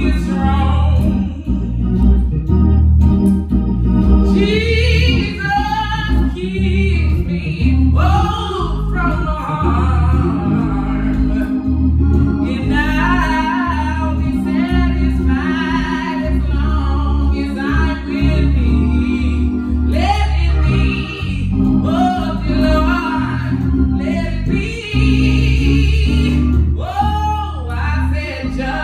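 A voice singing an old hymn in a lightly jazzed-up gospel style, accompanied by organ with long held chords and a strong bass.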